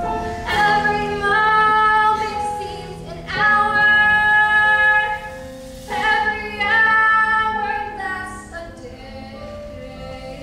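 Musical theatre music: held chords that change about every two to three seconds, with singing voices.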